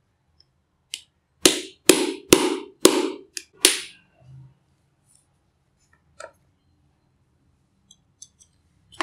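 A quick run of about six sharp metallic knocks as a screwdriver is worked against the laminated steel core of a small step-down transformer to separate its plates, followed by a few faint clicks of metal near the end.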